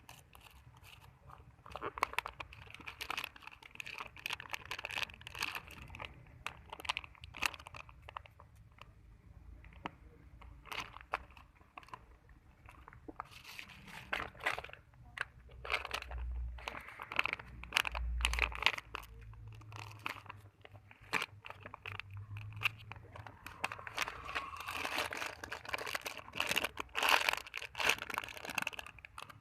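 Plastic wrapping crinkling and crackling as it is handled close to the microphone, in irregular runs of short crackles.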